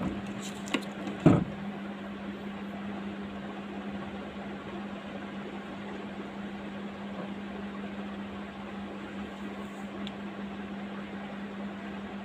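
Steady low hum with an even hiss, broken about a second in by a couple of sharp clicks and one louder knock.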